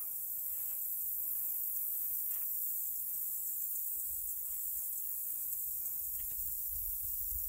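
Open-air ambience: a steady high hiss with an uneven low rumble of wind on the microphone, and a few faint soft rustles.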